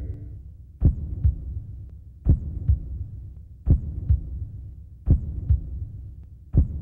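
Heartbeat sound effect in a trailer underscore: pairs of low thumps, lub-dub, about one pair every second and a half, over a low drone.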